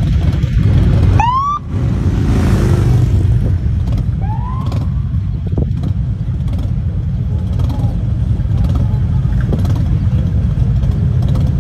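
Steady low rumble of many touring motorcycle and trike engines running together. A short rising siren whoop sounds about a second in, and a fainter one around four and a half seconds.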